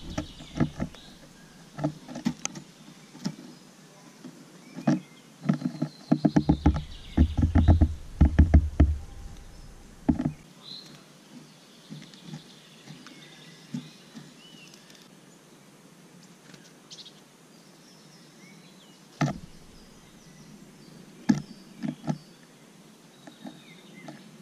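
Great tit pecking and hopping about a wooden seed feeder full of sunflower seeds: sharp taps and knocks on the wood. A fast run of pecks, several a second, comes about five seconds in, and a few single knocks follow near the end.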